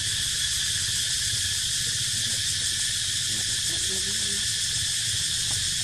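Steady chorus of insects droning in the trees, a constant high-pitched shrill over a low rumble, with no break.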